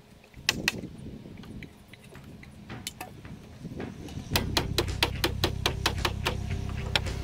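Hammer blows driving nails into wooden roof battens: two sharp strikes about half a second in, then a quick run of strikes at about four a second from a little past four seconds in.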